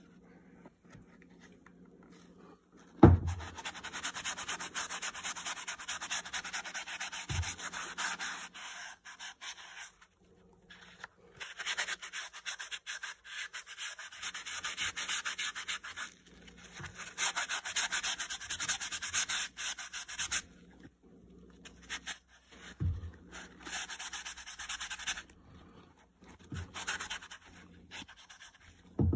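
A damp magic eraser scrubbing a boot's wedge sole in long runs of quick strokes, with short pauses between them. A few dull thumps break in, the loudest about three seconds in.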